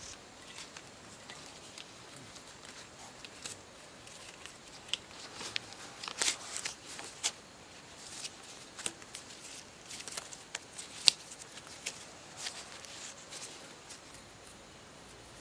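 Black strips being pulled and knotted around a bamboo pole by hand: irregular rustling with scattered sharp crackles and clicks, the loudest click about two-thirds of the way through.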